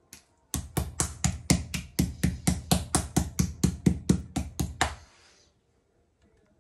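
Metal meat-tenderizer mallet pounding boneless chicken breast on a wooden cutting board: a fast, even run of knocks, about six a second, that stops about five seconds in.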